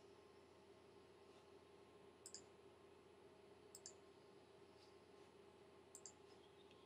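Faint computer mouse clicks, about four of them, some in quick pairs, over a low steady hum.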